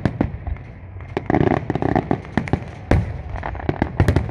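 Aerial fireworks shells bursting overhead in a rapid, uneven series of sharp bangs and pops, with an especially loud bang about three seconds in.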